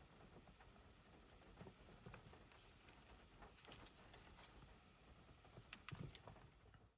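Near silence, with faint scattered small clicks and taps, a few a little louder near the end.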